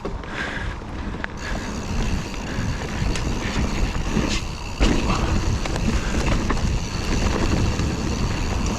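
Full-suspension mountain bike being ridden along a rough dirt trail: tyres rumbling over the ground, with wind buffeting the helmet camera's microphone and scattered small clicks and rattles from the bike. It gets a little louder about five seconds in.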